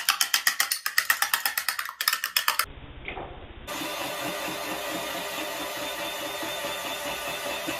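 Eggs being beaten by hand in a bowl: rapid, even clinking of the utensil against the bowl, about seven strokes a second. After about three seconds the clinking stops, and a steady mechanical hum with a faint regular pulse follows.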